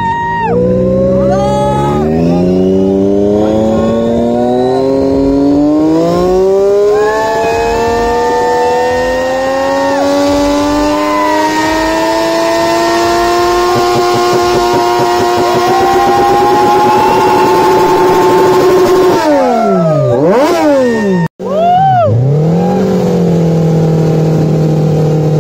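Triumph sportbike engine revved at a standstill: the revs climb slowly and steadily for about fourteen seconds, hold high for a few seconds, then fall with a couple of quick throttle blips. After a sudden break, a Suzuki Hayabusa's inline-four is blipped and then held at steady revs during a rear-tyre burnout.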